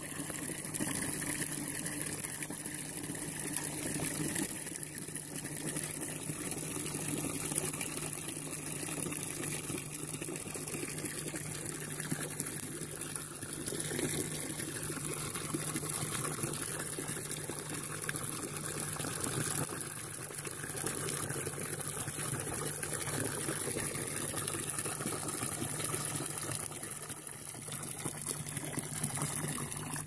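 Water pouring from a standpipe spout in a steady stream into a plastic bucket, splashing into the water as the bucket fills.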